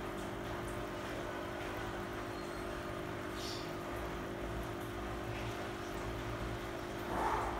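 Aquarium air pump humming steadily while its air stone bubbles into a glass fish bowl, with a brief louder swell near the end.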